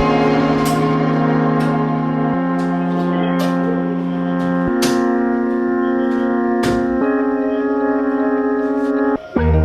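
Background music: held organ-like keyboard chords that change every couple of seconds, with light percussion ticks, and a brief break near the end as the track changes.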